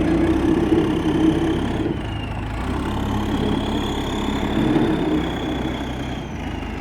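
1998 JCB backhoe loader's diesel engine running steadily, with a faint high whine over it.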